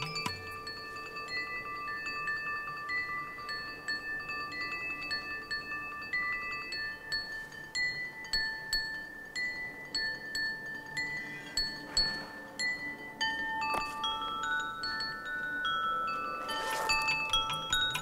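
Celadon porcelain percussion, bowls and hanging chimes, struck one note at a time: clear ringing tones that overlap and die away slowly, scattered like wind chimes, with a quicker run of notes near the end.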